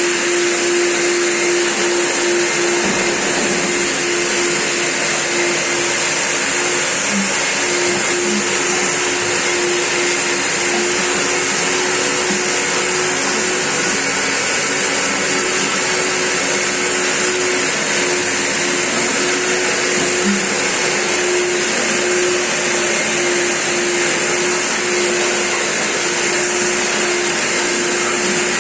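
Vacuum cleaner running steadily, a constant motor hum under an even, hissing rush of air with no change in speed.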